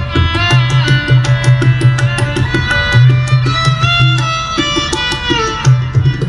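Indian instrumental music: tabla drumming with deep, booming bass strokes under a melody line that slides between notes.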